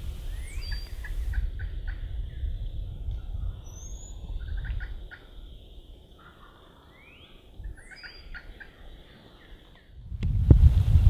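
Wild turkey gobbler gobbling three times, each a quick rattling gobble. Small birds chirp faintly high above it, and low wind rumbles on the microphone, growing loud near the end.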